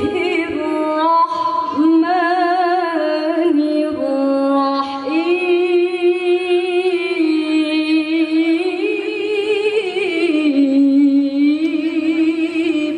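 A woman's melodic Quran recitation (tilawah): one long chanted phrase of held notes with quick wavering ornaments.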